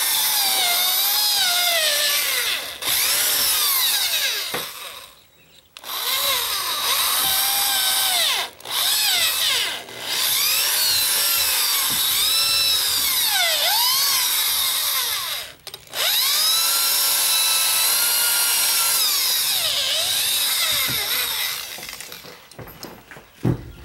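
Power drill running with its bit dragged sideways through the wood of a door jamb, used as a cutter to gouge out the deadbolt hole. The whine dips and recovers in pitch as the bit bites, in several runs separated by brief stops.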